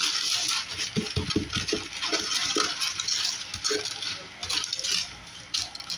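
Aluminum foil crinkling and rustling as it is handled and flattened, with a few light knocks about a second in.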